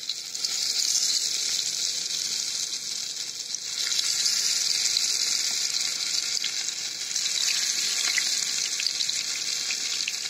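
Marinated fish pieces sizzling in shallow hot oil in a nonstick pan. The sizzle grows louder in steps, about 4 and 7 seconds in, as more pieces are laid into the oil.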